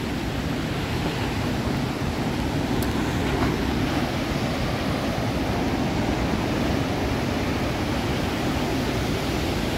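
Ocean surf breaking against a rocky headland: a steady rush of waves, with wind rumbling on the microphone.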